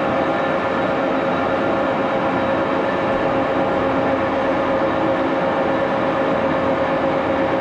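Axelson engine lathe running steadily under power, its spindle turning, with a constant whine over a even mechanical hum.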